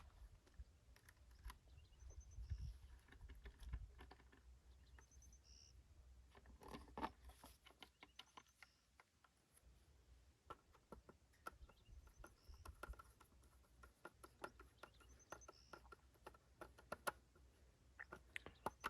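Near silence with faint, scattered small clicks and handling noise, as of wires being worked into the terminals of a well control box.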